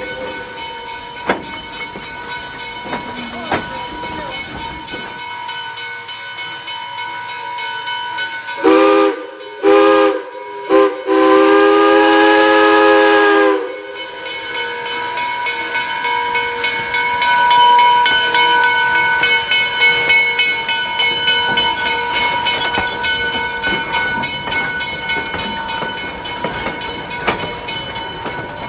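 Pennsylvania Railroad 643, a 0-6-0 steam switcher, hissing steam. About nine seconds in, its three-chime whistle blows two long blasts, one short and one long: the standard grade-crossing signal. The locomotive and its cars then roll past, the running noise swelling and slowly easing.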